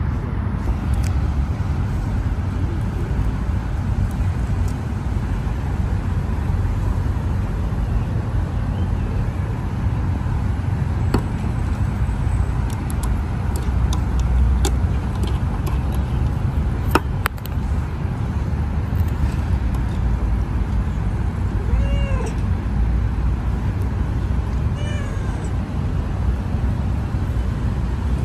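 A kitten meowing twice late on, two short mews a few seconds apart, the first louder, over a steady low rumble. A few faint clicks come around the middle.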